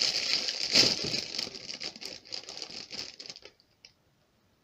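Thin clear plastic bag crinkling and crackling as it is pulled open by hand, loudest about a second in, stopping about three and a half seconds in.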